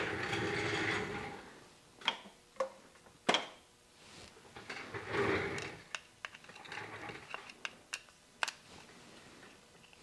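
Handling noises from an iVac plastic power-sensor housing being worked by hand: rustling, with a few sharp plastic clicks and knocks scattered through.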